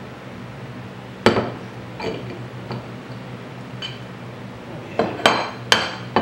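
Metal soft-plastic bait mold halves and pins being handled and set down, giving sharp metallic clinks and knocks with a short ring. They come singly at first, then several in quick succession near the end.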